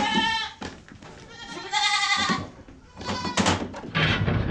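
Boer goat kids bleating: two high, wavering bleats, the first right at the start and the second about two seconds in.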